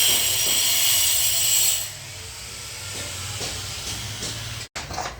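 Garbage truck letting off a loud hiss of air for about two seconds, over a steady low engine hum that carries on more quietly after the hiss stops.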